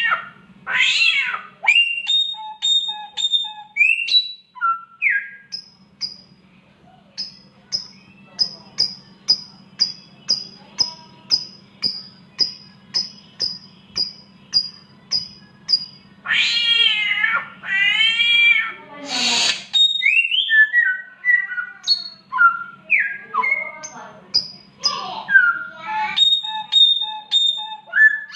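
Samyong bird mimicking a cat in heat with drawn-out, meow-like wails, mixed with its own whistles and a long run of short, sharp high chirps repeated about twice a second. A steady low hum runs underneath.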